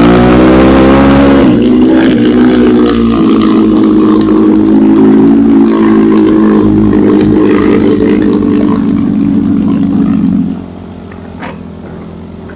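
Enduro motorcycle engine running hard under throttle, its pitch shifting a couple of times in the first few seconds and then holding steady. About ten seconds in, the engine sound falls away abruptly to a much lower level.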